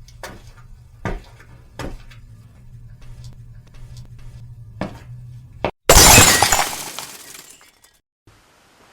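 Glass shattering: one loud crash about six seconds in, dying away over a second or two. Before it come several sharp knocks over a low steady hum.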